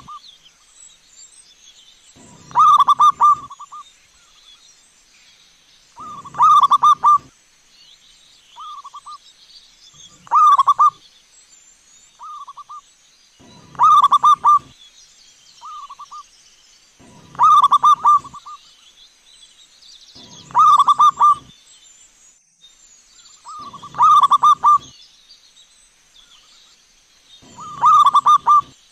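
Zebra dove (perkutut) cooing: a loud phrase of quick rolling coos about every three and a half seconds, eight times, with softer, shorter phrases between some of them.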